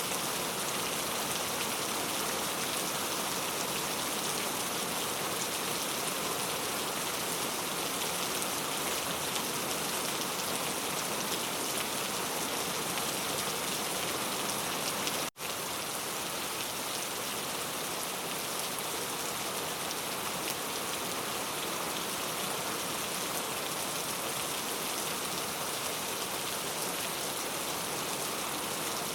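Steady rainfall, an even hiss of many drops falling continuously, with a momentary dropout about halfway through.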